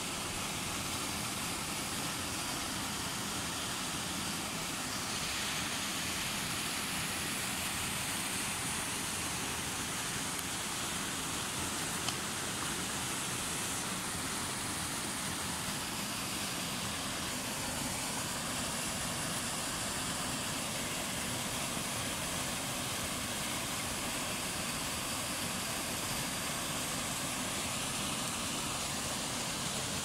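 Steady rush of falling and flowing water from a small waterfall and its stream, an even noise that does not change.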